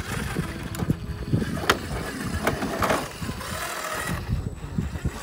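RC4WD Trail Finder 2 scale rock crawler working its way over rock: the small electric motor and geared drivetrain whirring under a low rumble, with a few sharp clicks and knocks as the tyres and chassis come down on the stone.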